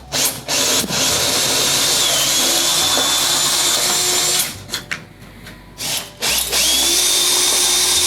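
Power drill boring holes through the top of a platform ladder: a steady high whine for about three seconds, a short pause with a few clicks, then the drill spinning up again for a second run.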